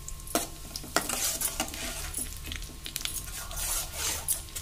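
Mustard and cumin seeds sizzling in hot oil and ghee in a stainless steel kadai as they are tempered, stirred with a steel spoon that scrapes and clinks against the pan. Scattered sharp clicks run through the sizzle.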